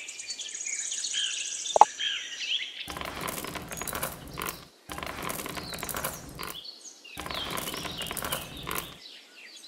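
Small painted pebbles poured and scattered onto miniature brick floor tiles, clattering in three bursts of a second or two each. Birds chirp in the first few seconds, with a single sharp click.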